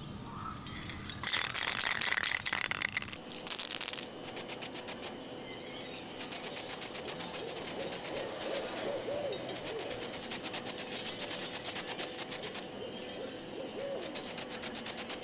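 Aerosol spray can of silver acrylic lacquer: a hiss of spraying lasting about two seconds, then the can being shaken, its mixing ball rattling in quick, even clicks in long runs.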